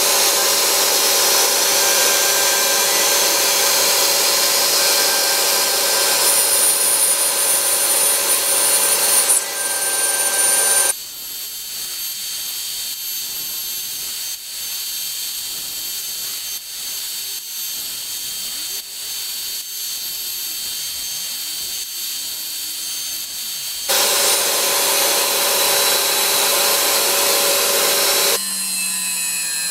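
CNC milling spindle running and an end mill cutting slots into a plate: a loud steady whine over grinding cutting noise. About a third of the way in it drops to a quieter sound for about thirteen seconds, then comes back loud; near the end the pitch glides upward.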